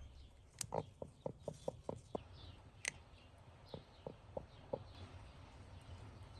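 Broody hen clucking on her nest of hatching eggs: a run of short low clucks, about three to four a second, pausing briefly in the middle, with two sharp clicks among them.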